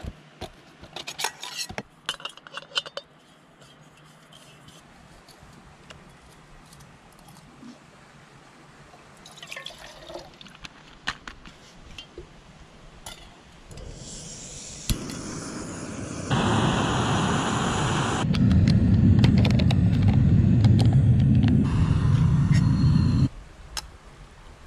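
Light metal clinks from a camping mug and stove being handled. Then a gas-canister camp stove burning with a steady rushing roar, which grows louder in steps and cuts off suddenly near the end.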